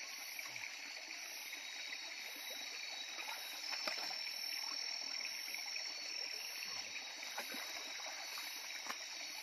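Shallow rocky stream running with a steady rush of water, with a few faint splashes and knocks from wading in it. A steady high-pitched chirring runs above it.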